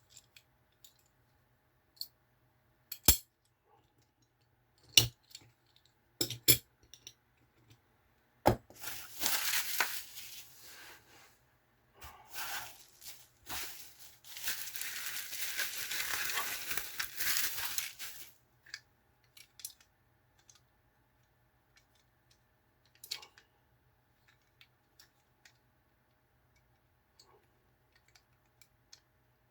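Small metal die-cast toy vehicles clinking and knocking as they are handled and set down, with two long stretches of rustling packaging in the middle.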